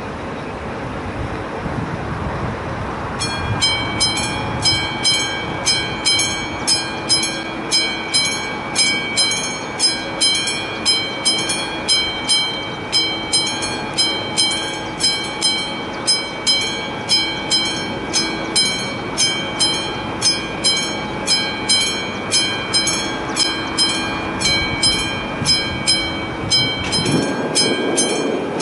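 Classic electromechanical warning bell of an AŽD 71 level-crossing signal starting about three seconds in and striking steadily, about one and a half strikes a second, each strike ringing on. The crossing is warning of an approaching train.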